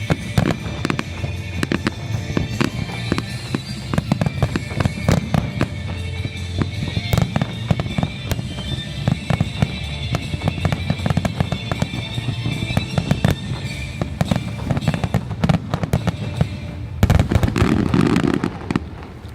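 Fireworks finale: a rapid, continuous barrage of bangs and crackles, with music playing underneath. About 17 seconds in comes a denser, louder volley, and then the bangs die away near the end.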